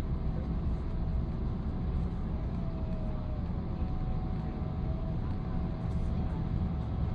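Steady low rumble inside the cabin of a Boeing 777-300ER rolling on the ground after landing, with a faint whine that wavers in pitch a little a few seconds in.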